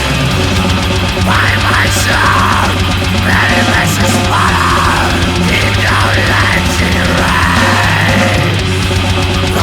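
Heavy metal band playing an instrumental passage: distorted electric guitars, bass guitar and drums, loud and dense, with a guitar melody weaving over a steady low end.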